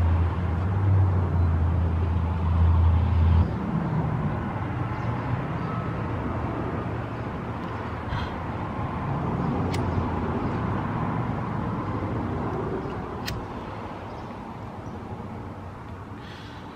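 Outdoor traffic noise: a vehicle's low engine hum that cuts off about three and a half seconds in, then a steady wash of road noise with a few faint clicks.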